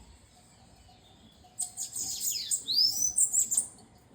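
A bananaquit (sibite) singing one burst of high-pitched, rapid song lasting about two seconds, starting about a second and a half in.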